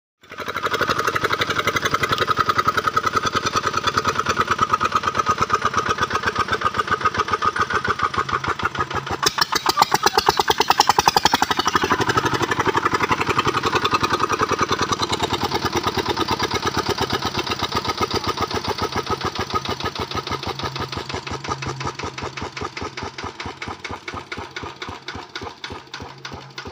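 A single-cylinder diesel generator engine running with its exhaust fed through a large loudspeaker horn, giving a fast, even chugging. It gets louder and quicker around the middle, then the beats slow down and fade as the engine is shut down near the end.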